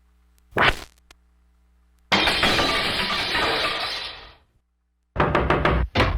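Crash sound effects played back from a vintage radio station cart tape: a short hit about half a second in, then a loud breaking crash about two seconds in that dies away over about two seconds, and another crash starting near the end.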